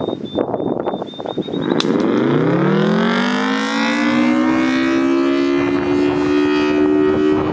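Federal Signal Thunderbolt 1000T outdoor warning siren with a 4/5-port rotor starting up on full alert. Its pitch rises for about two seconds, then levels off into a steady two-note chord. Wind buffets the microphone, mostly in the first second or two.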